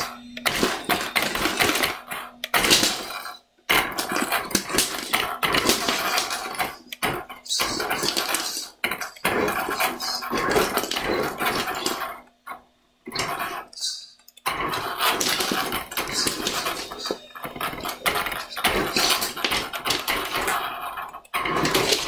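Radio-controlled monster truck driving in short runs over loose Lego bricks on a wooden floor: its motor and gears whirring while plastic bricks clatter and scatter, with several brief stops between runs.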